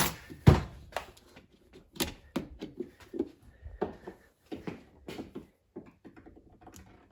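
A sharp light-switch click about half a second in, then a string of irregular small clicks and knocks from handling.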